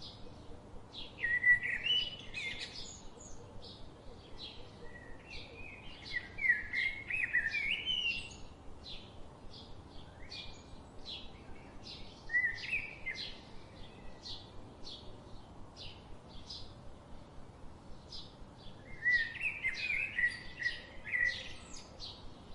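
Small birds chirping and singing. There is a steady run of short high chirps, a few a second, and four louder warbling song phrases: near the start, around six to eight seconds in, briefly around twelve seconds, and again near the end.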